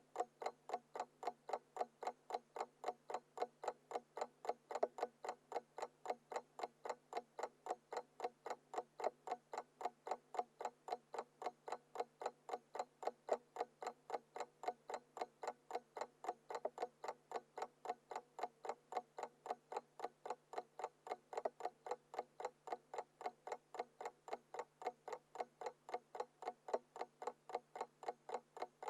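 Classic analog alarm clock ticking: a quick, even run of sharp mechanical ticks that never changes pace.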